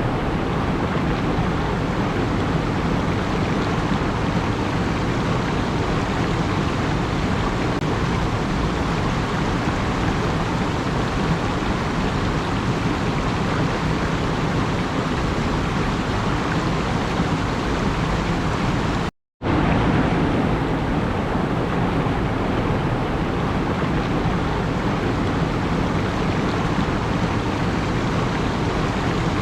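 Steady, even rushing noise, briefly cut to silence about nineteen seconds in before carrying on unchanged.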